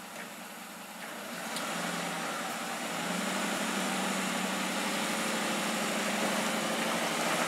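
Pickup truck engine pulling under load as it tows a pontoon boat on its trailer up the boat ramp out of the water. The engine comes up about a second in, rises a little again near the three-second mark, then runs steadily.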